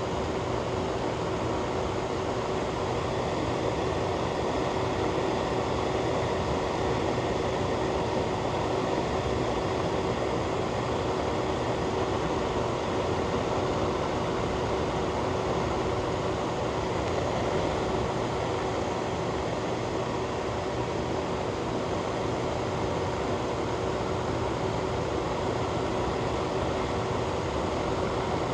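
Ventilation fan running: a steady whooshing rush of air with a faint steady hum, unchanging throughout.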